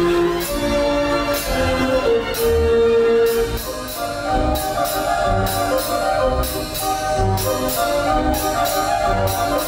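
Orchestral-sounding music with a melody over a steady beat.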